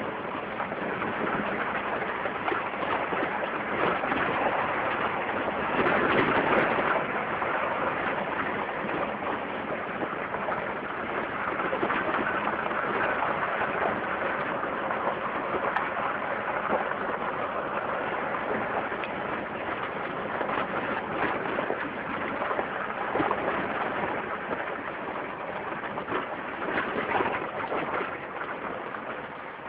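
Jeep Wrangler driving off-road: a steady, crackly noise of the vehicle and its tyres moving over a rough track, with many small ticks and rattles.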